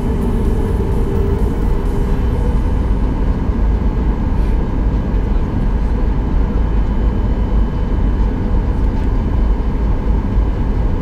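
Boeing 737 MAX 8's CFM LEAP-1B jet engines running, heard from inside the cabin: a steady low rumble with a faint, steady high whine.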